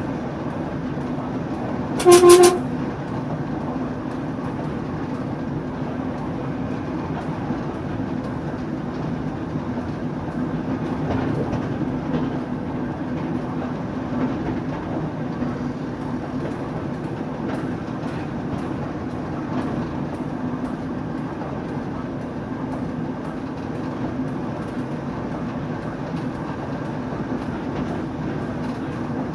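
TEP70 passenger diesel locomotive's 16-cylinder diesel engine running steadily while under way, with one short horn blast about two seconds in, the loudest sound.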